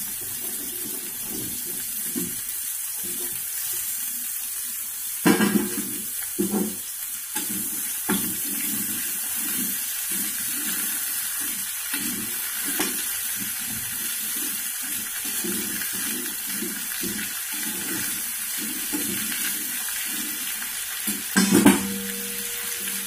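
Chopped bottle-gourd peel, potato and tomato sizzling in hot oil in a steel kadhai while a spatula stirs and scrapes them in quick strokes. A few louder knocks about five to eight seconds in and again near the end.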